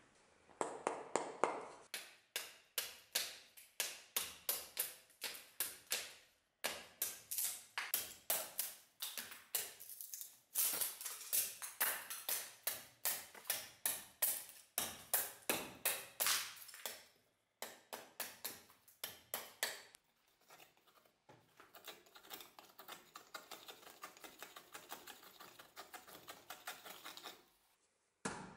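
Restored German-pattern carpentry axe chopping into a piece of wood on a stump, as a cutting test. The strikes come quickly, about three a second, with short pauses. Near the end they turn to lighter, quicker taps.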